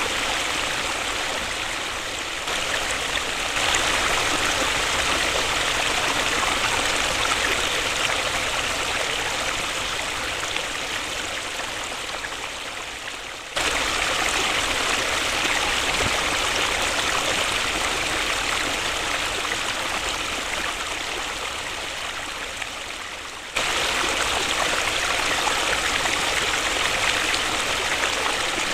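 Waterfall rushing in a steady hiss of falling water. It fades slowly, then jumps back to full loudness abruptly twice, about halfway through and again near the end.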